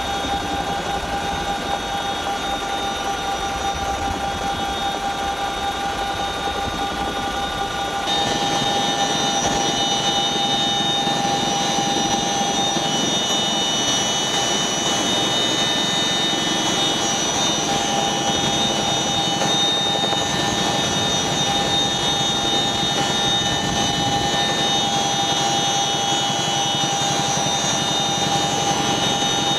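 CH-47 Chinook twin-rotor helicopter with twin turboshaft engines running steadily in flight, a continuous rotor and engine noise with a steady whine. About eight seconds in, the sound cuts abruptly to inside the cabin by the cargo hook hatch, where it is louder and the high turbine whine is stronger.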